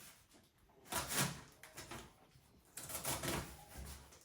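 A cardboard box being opened and handled: a short scrape about a second in, then a longer stretch of cardboard scraping and rustling.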